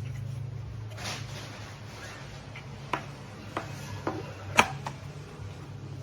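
A few sharp clicks and taps, the loudest about two-thirds of the way in, over a steady low hum.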